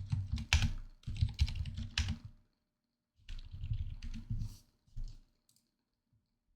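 Typing on a computer keyboard: a quick run of keystrokes for about two and a half seconds, a short pause, a second run, then a few last keys.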